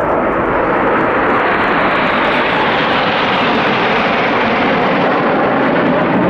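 The Red Arrows' BAE Hawk T1 jets flying past in formation: a loud, steady jet rush that grows brighter toward the middle and dulls again toward the end as the aircraft pass.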